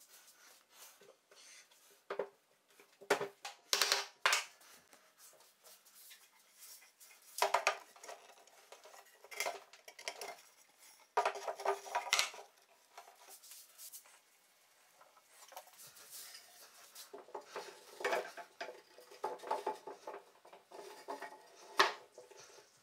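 Irregular knocks and clatter of wooden furniture parts and metal bar clamps being handled during assembly, with a few sharper knocks, the loudest near the end.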